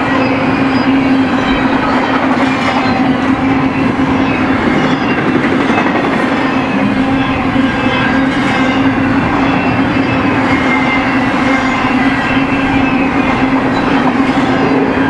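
Double-stack intermodal container well cars rolling past at speed: a steady rumble and clatter of steel wheels on rail, with thin, faint high squeals from the wheels.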